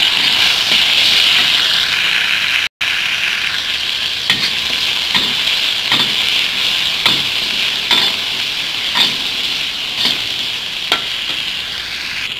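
Bell pepper pieces and garlic sizzling in hot oil in a wok, with a metal spatula scraping and knocking against the wok about once a second as they are stirred. The sound cuts out for an instant about three seconds in.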